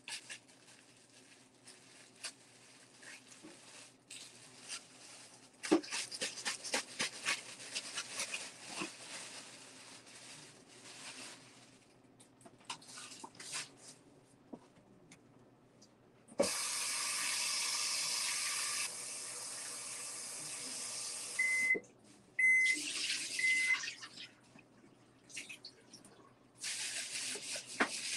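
Light clattering of kitchen prep work, then a kitchen tap running water steadily for about five seconds. Three short electronic beeps from a kitchen appliance follow, and the tap runs again briefly near the end.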